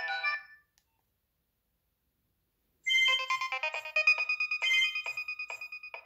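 Nokia 6100 ringtone previews playing from the phone's small speaker. One electronic melody fades out just after the start, then there is a couple of seconds of silence. A new, beat-driven ringtone tune starts abruptly almost three seconds in.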